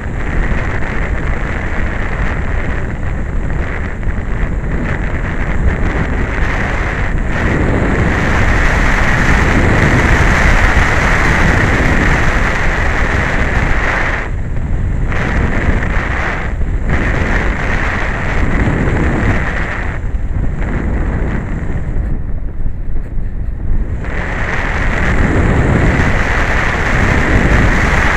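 Heavy wind rushing over the microphone of a micro camera riding on a flying RC glider, with a steady high hum under it. The hum cuts out briefly a few times, longest for about two seconds near the end, leaving only the low wind rumble.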